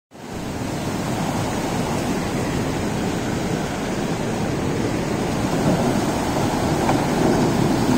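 Floodwater rushing steadily: a continuous even noise, heaviest in the low range.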